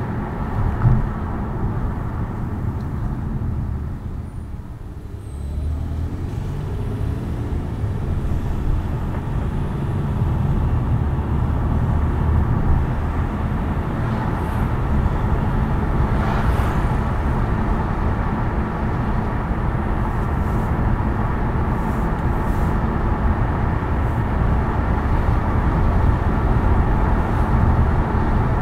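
Car driving: steady tyre and engine noise that eases off briefly about four to five seconds in, then builds up again.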